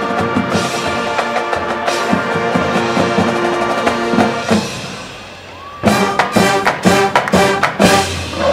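High school marching band, brass and drums, playing a loud held chord over drum strokes. About four and a half seconds in it drops away, then comes back with a run of short, loud ensemble hits.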